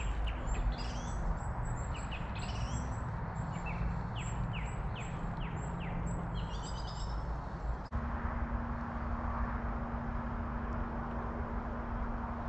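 Small songbird singing repeated phrases of quick falling notes over a steady outdoor hiss for the first seven seconds or so. After a brief drop about eight seconds in, the birdsong stops and a low steady hum runs on with the hiss.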